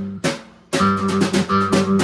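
Rock band playing: guitar and bass chords with drum and cymbal hits. The band breaks off briefly about half a second in, then comes back in together.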